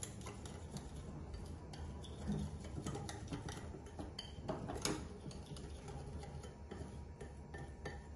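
Small wire whisk beating milk, flour and salt in a bowl, its wires making repeated light ticks against the bowl, a little louder about halfway through.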